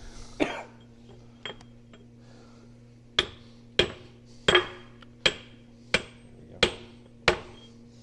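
Hammer tapping on a steel transmission part to drive it loose: a couple of light blows, then seven steady strikes about two-thirds of a second apart, each with a short metallic ring.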